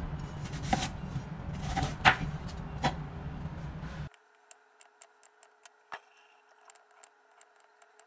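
Kitchen knife cutting a hard snow pear on a wooden cutting board: a few sharp knife strikes against the board over a low steady hum. After about four seconds the sound drops abruptly, leaving only faint light ticks.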